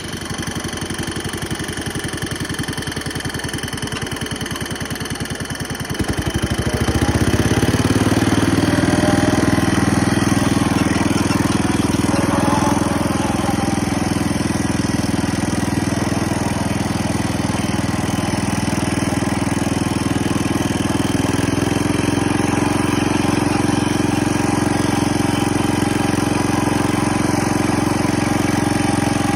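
The engine of a 1970 140 H3 garden tractor running at a low, even idle, then throttled up about six seconds in and running steadily at higher speed.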